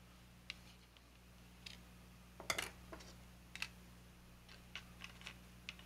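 Scattered light clicks and taps of small plastic model-kit parts being handled on a cutting mat, about a dozen in all, the loudest a quick double click about halfway through, over a faint steady hum.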